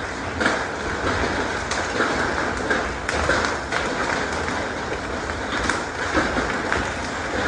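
Heavy hail mixed with rain pelting hard pavement: a dense, steady clatter with many sharper individual hailstone impacts scattered through it.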